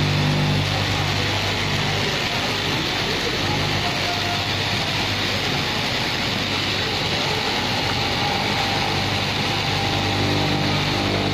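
Electric straight-knife cloth cutting machine running steadily, its upright reciprocating blade cutting through a stack of denim plies. The motor's hum is strongest at the start and again near the end.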